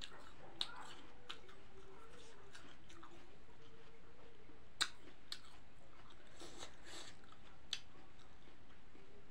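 Close chewing of a crisp, juicy apple slice, with a few sharp crunching bites; the loudest comes a little under five seconds in.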